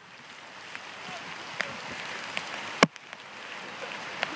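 Several people's footsteps rustling and crunching through fallen leaves as they hurry along a woodland path, the noise growing louder toward the end. A sharp knock a little before three seconds in is the loudest sound.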